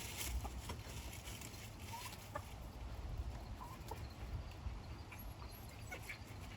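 Chickens clucking: a few short, soft calls scattered through.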